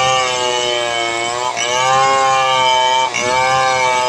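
Stihl 070 chainsaw, a large two-stroke, held at full throttle while ripping a log lengthwise. The engine note sags a little under the load of the cut and dips briefly about every one and a half seconds before picking up again.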